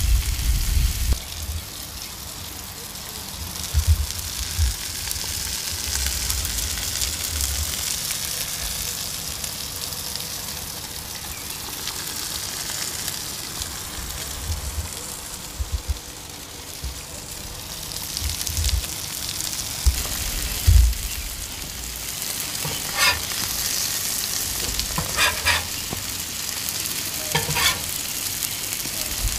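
Beef smash burger patties and potato wedges sizzling steadily on a hot Blackstone flat-top griddle. A few low bumps come through, and several brief sharper sounds come in near the end.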